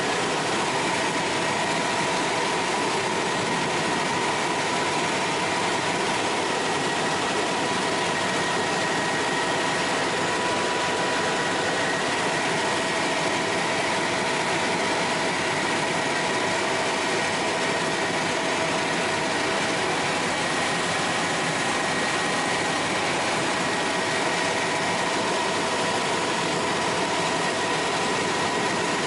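Bell 206L4 LongRanger helicopter in cruise flight, heard inside the cockpit: a steady rush of turbine and rotor noise with a constant high whine over it.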